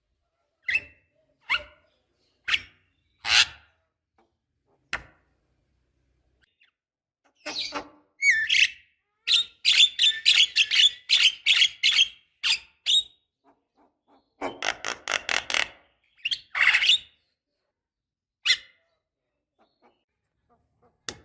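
Javan myna calling: a few short, harsh single calls spaced about a second apart, then fast chattering runs of rapid notes in the middle, and one last call near the end.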